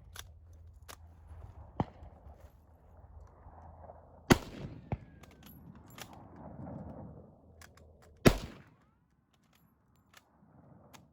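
Two loud gunshots about four seconds apart, each with a short echoing tail, among several fainter, sharper cracks of more distant shots.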